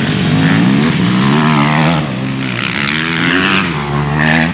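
Motocross dirt bike engines revving as the bikes ride the dirt track, the engine pitch rising and falling repeatedly with throttle and gear changes.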